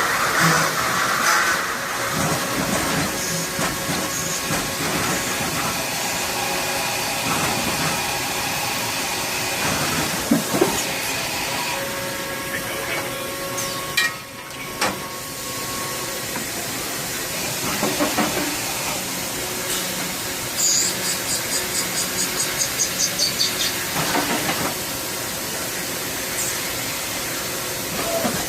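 Tsugami SS32 Swiss-type CNC lathe running: a steady hiss with several steady motor and spindle whines. A few sharp clicks fall near the middle, and a run of quick pulses, about four a second, lasts some three seconds later on.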